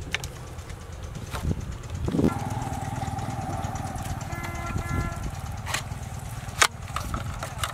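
A low engine rumble runs steadily, with a few sharp plastic clicks as a plastic bottle funnel is handled and fitted into a PVC pipe; the loudest click comes near the end.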